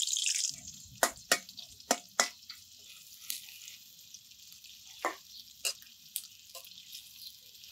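Chopped onion sizzling in hot oil in an aluminium karahi over a wood fire: loud for about the first half second, then a faint steady hiss. Scattered sharp cracks and clicks stand out above the hiss.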